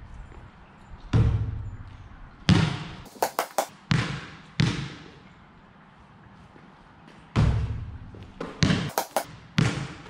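A basketball hitting the hoop and bouncing on a concrete court: about a dozen sharp thuds, each followed by an echo, with a quick run of small bounces about three seconds in.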